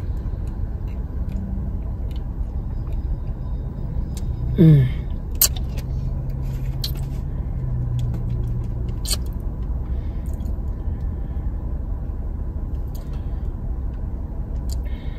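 Steady low rumble of a car idling, heard from inside the cabin. There are a few light clicks, and a brief falling vocal sound about four and a half seconds in.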